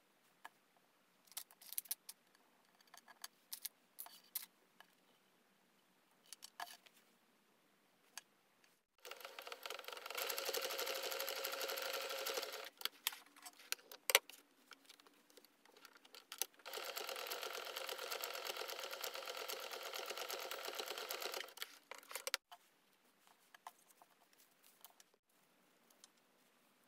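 Electric household sewing machine stitching in two steady runs of a few seconds each, separated by a pause with one sharp click. Before and after the stitching, light scattered clicks and rustles of fabric pieces being handled.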